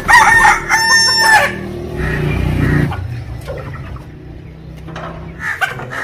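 Chickens being handled: a rooster gives a loud, drawn-out call in the first second and a half, rising at its end, followed by rustling and wing flapping.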